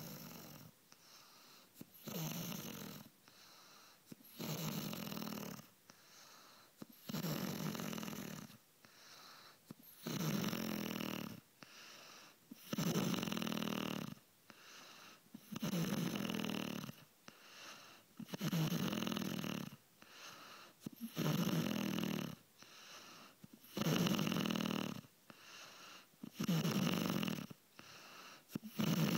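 A woman snoring loudly in her sleep with a steady rhythm: a loud, rasping snore about every three seconds, each with a softer breath between, about ten snores in all.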